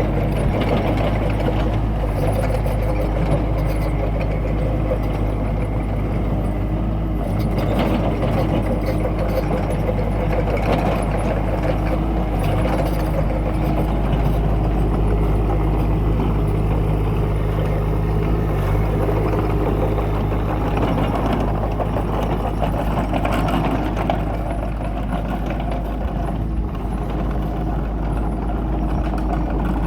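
Kubota mini excavator's diesel engine running steadily while it works, packing down dirt, with a few faint knocks along the way.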